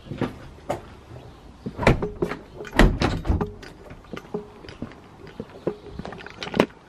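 Back door pulled shut, with a cluster of loud knocks and rattles about two to three seconds in, then footsteps on paving slabs.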